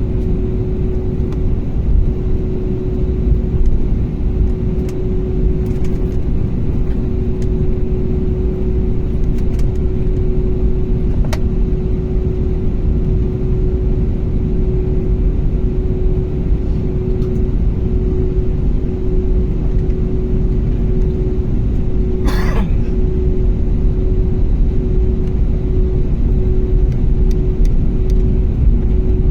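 Steady engine drone and low rumble heard from inside a moving vehicle, with one constant hum throughout. A brief rustle about 22 seconds in.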